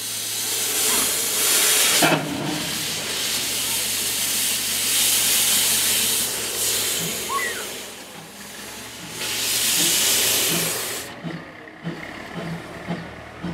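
Narrow-gauge steam locomotive venting steam: a loud hiss that starts suddenly, surges twice and cuts off near the end, followed by soft regular low beats about three a second.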